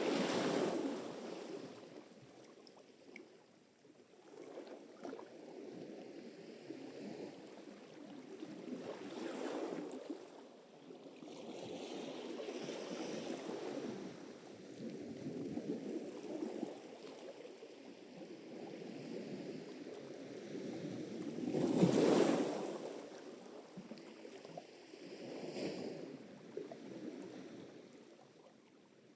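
Sea surf: waves break and wash in as slow swells of rushing water that rise and fall every few seconds, the biggest one about three quarters of the way through.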